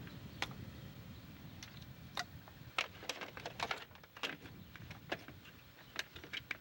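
Irregular sharp clicks and light metallic clinks, more than a dozen at uneven spacing, from tools and parts being handled during work on a truck engine, over a low steady hum.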